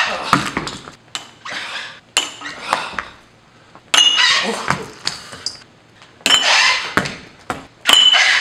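Repeated sharp clinks and knocks, several with a brief glassy ring, from spinning hook kicks striking at a glass bottle; the loudest come about four seconds in and near the end.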